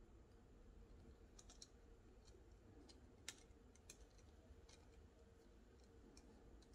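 Near silence with scattered faint clicks and taps of a small plastic LEGO model being turned over in the fingers, the sharpest one a little after the middle, over a faint steady hum.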